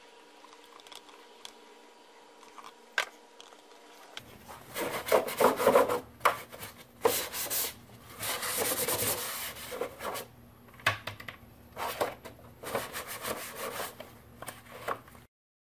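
Quiet for about four seconds, then a run of uneven rubbing and scraping noises with sharp clicks as hands handle the plastic oil bottle and funnel around the engine's oil filler. The sound stops abruptly just before the end.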